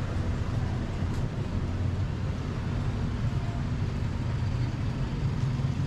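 Street traffic: a motor-vehicle engine idling nearby gives a steady low hum, with general road noise around it.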